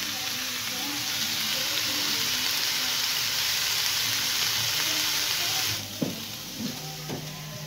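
Slices of raw pork belly sizzling in a hot frying pan. The sizzle cuts off suddenly about six seconds in, leaving quieter room sound with a few light knocks.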